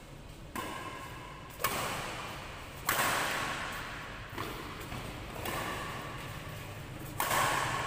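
Badminton rally: rackets strike the shuttlecock about six times, roughly once a second, each hit sharp and followed by a long echo in the large hall.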